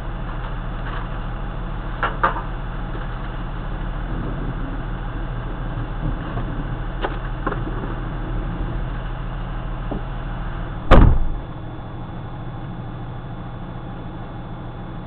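Steady rain on a stationary vehicle, picked up by a dashcam's microphone over a low hum, with a few light taps and one loud sharp thump about eleven seconds in.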